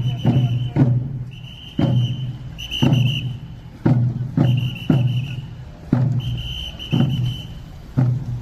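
Korean chwitadae military band marching: the yonggo barrel drums beat a slow, steady pattern of about one to two strokes a second, with a high held note coming back for about a second at a time between the strokes.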